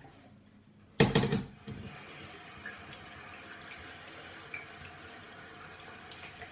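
Water from a kitchen tap running into an empty kettle, filling it: a loud splash as the flow starts about a second in, then a steady rush of water.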